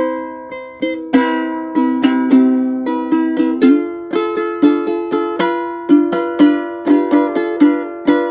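Ukulele played unaccompanied: a simple chord progression of C and G7 with a chord between, picked note by note like a bass line, with a fresh plucked note or chord every third to half second, each left to ring.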